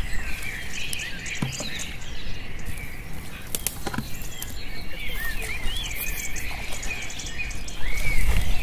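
Small birds chirping repeatedly, many short rising and falling calls, over a steady low rumble, with a few sharp knocks; the low rumble grows louder near the end.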